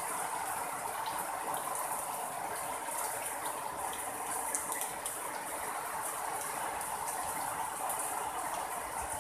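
Steady rain falling, an even hiss sprinkled with many small ticks of drops striking.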